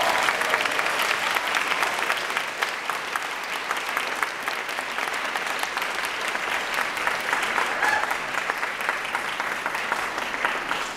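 Audience applauding right after a live song ends: dense clapping throughout, easing slightly toward the end.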